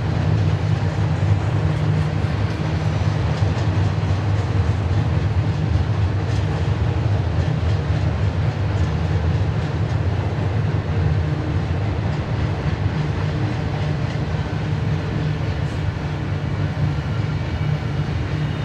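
BNSF double-stack intermodal train's container cars rolling past, a steady low rumble of steel wheels on rail.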